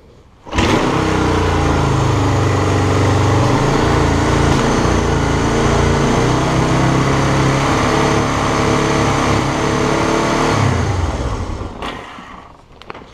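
1975 Honda CL360's parallel-twin engine catching about half a second in and running steadily at an idle set too high, just after a carburettor rebuild. It winds down and stops near the end.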